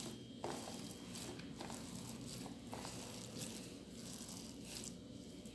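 Faint, irregular crackling and small clicks of foam-bead modelling dough being squeezed and mixed by hand.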